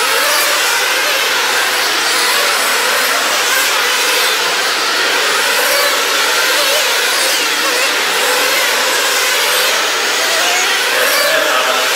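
Several nitro-powered RC sprint cars racing together, their small glow-fuel engines making a continuous high buzzing whine that rises and falls in pitch as they accelerate and lift through the turns.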